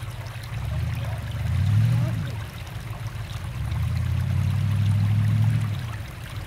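A distant off-road vehicle's engine revving in long swells as it crawls up a steep rock ledge, loudest about two seconds in and again in the second half. Shallow creek water runs over the rock under it.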